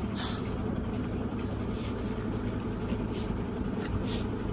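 Steady low hum of a car engine running, heard from inside the car, with a few brief sharp hissing sounds, the loudest one just after the start.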